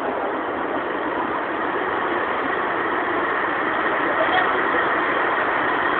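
A train making a steady, even noise at a station platform, growing slightly louder over the few seconds.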